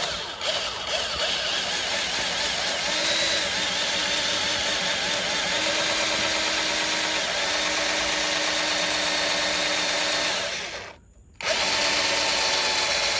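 Black & Decker electric drill running under load as its bit bores a hole, stopping for about half a second near the end and then starting again until the bit goes right through.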